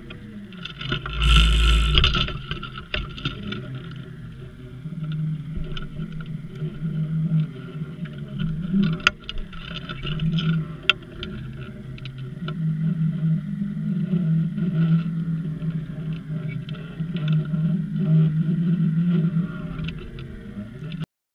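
Muffled drone of the boat's engine heard underwater through a GoPro's waterproof housing, wavering up and down in pitch. There is a loud bump a second or so in, and two sharp clicks about two seconds apart later on.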